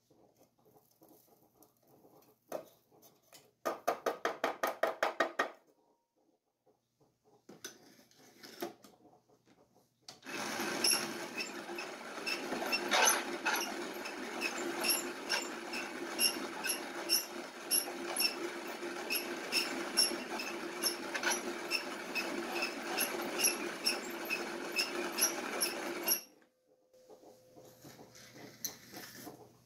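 Peugeot Frères hand-cranked coffee grinder grinding beans: a steady crunching grind with a regular tick on each turn of the crank, lasting about fifteen seconds and stopping suddenly. Before it come a short fast rattle and a few quieter knocks.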